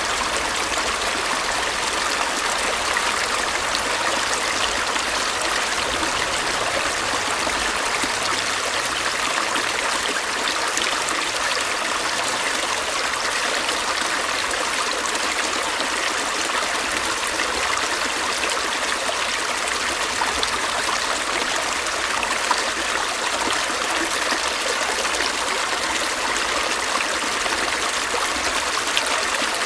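Stream water flowing and trickling steadily over stones, an even rushing with fine splashing detail.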